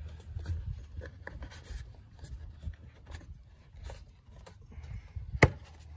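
Hands handling the plastic dust cap at the back of a headlight housing: light rubbing and small scattered clicks, with one sharp click about five and a half seconds in.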